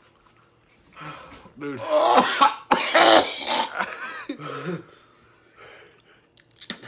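A man coughing hard in a run of harsh coughs and throat-clearing, starting about a second in and dying away by about five seconds: a reaction to the burn of an extremely hot pepper. A short sharp click comes near the end.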